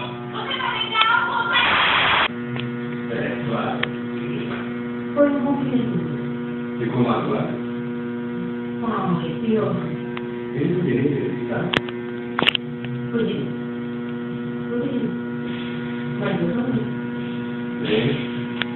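Steady electrical mains hum, a buzz made of several steady tones. Faint short sounds that rise and fall come and go over it every second or two, with a brief rustle near the start and a couple of clicks about two-thirds of the way in.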